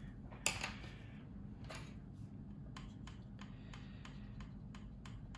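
Faint clicks and light taps of a small paintbrush being worked on a plastic model and a metal paint palette, with a sharper click about half a second in and a quick run of light clicks later, over a low steady hum.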